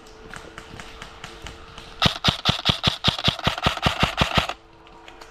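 Airsoft rifle firing close by: a rapid, evenly spaced string of about seventeen shots, about seven a second, starting about two seconds in and lasting about two and a half seconds. Fainter scattered pops of other airsoft guns come before it.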